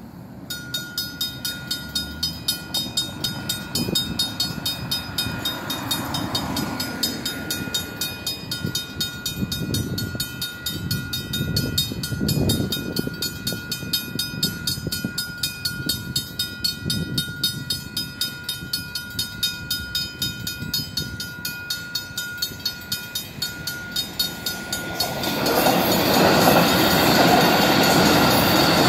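Safetran mechanical crossing bells ringing with rapid, even strikes. About 25 seconds in, an electric commuter train reaches the crossing and the loud noise of its wheels on the rails rises over the bells.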